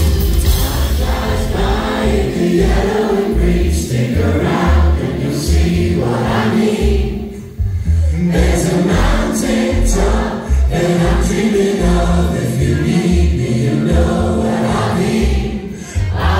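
Live band playing a pop song with drums, bass and guitars, while many voices sing along together like a choir: the audience joining in the chorus. The music dips briefly twice, between sung phrases.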